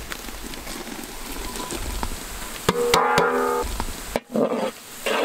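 Onions and curry leaves frying in oil in a large aluminium pot, sizzling as a bowl of chopped green chillies is tipped in. About three seconds in, a short held musical chord sounds for about a second.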